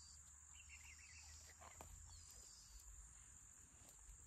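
Faint, steady, high-pitched chirring of insects, with a low rumble underneath.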